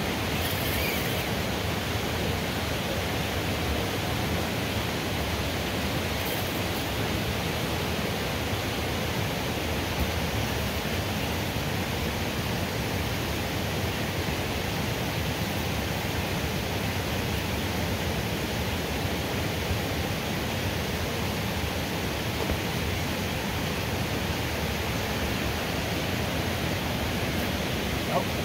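Steady, even rushing of falling water.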